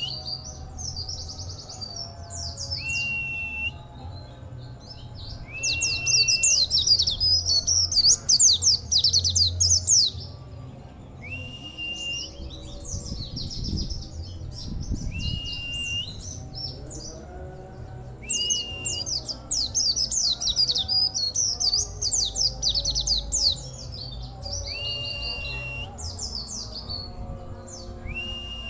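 Pleci (white-eye) singing in its rapid-fire 'nembak' style. A clear held whistle note, rising at its start, comes every few seconds, alternating with long runs of fast, high twittering trills. The keeper calls the song strange and rare and suspects the bird picked it up from Auri or Monty plecis.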